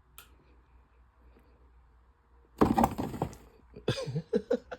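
A sudden loud knock and clatter about two and a half seconds in, followed by several short, sharp knocks.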